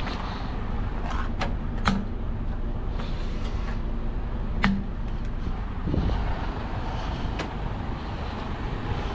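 Low, steady rumble of a running truck, with a few sharp clicks and knocks scattered through it, the loudest about two seconds in and just before five seconds in.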